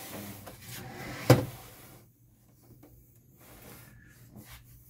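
The plastic case of a Flashforge Inventor 2 3D printer scraping and bumping on a wooden bench as it is turned around, with one sharp knock a little over a second in, then a few faint taps.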